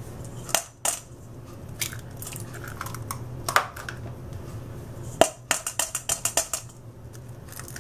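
Eggs being cracked on the rim of a stainless steel mixing bowl: a few sharp separate cracks, then a quick run of light taps a little past halfway.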